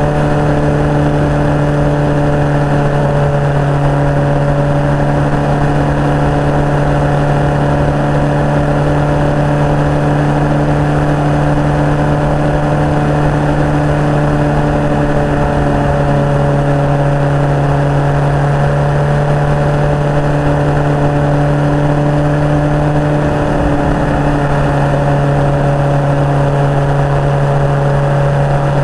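Suzuki GSX-R 750 inline-four engine running at an almost constant pitch while cruising, heard from the bike under wind and road noise, with one brief waver in pitch late on.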